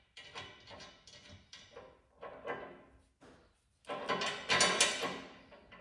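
Metal parts and hardware being handled and shifted in a run of uneven clatters and scrapes, with a longer, louder sliding rattle about four seconds in.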